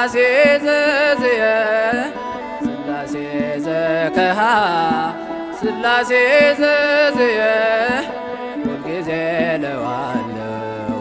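A man singing an Ethiopian Orthodox mezmur (hymn) in long, wavering, ornamented phrases, over instrumental accompaniment with sharp percussion strikes.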